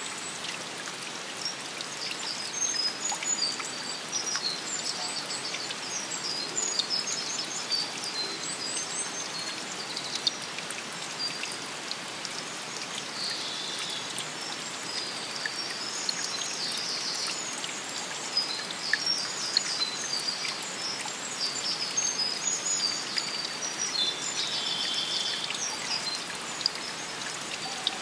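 A steady hiss of running water in a forest, with small birds repeatedly singing short, high chirps and trills.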